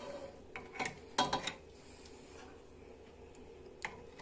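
Kitchen utensils clinking and knocking against a pot and glass jars as thick syrup is ladled into the jars: a few short clinks, the loudest a little over a second in and one more near the end.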